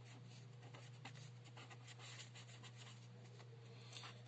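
Marker pen writing, faint quick scratchy strokes as words and arrows are written out, over a steady low electrical hum.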